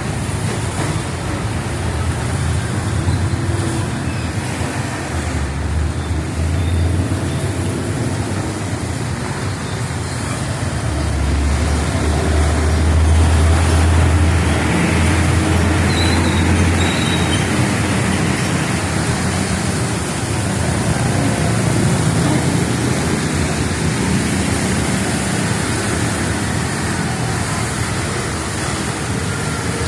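Traffic passing on a rain-soaked street under steady heavy rain, with tyre hiss and engine noise; a large vehicle's low engine drone swells past about five seconds in and again from about eleven to seventeen seconds.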